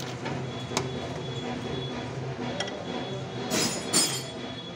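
Steel parts and tools clinking on a TAFE tractor's steering drop-arm shaft as a washer and check nut are fitted and a steel bar is set against the nut. There are a few light single clinks, then a short cluster of sharper metal-on-metal strikes about three and a half seconds in, over a faint steady hum.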